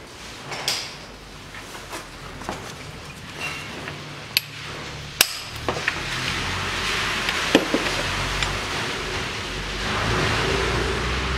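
Scattered sharp metallic clicks and taps of hand tools being handled under a truck, a few at a time. A steady background noise grows louder in the second half.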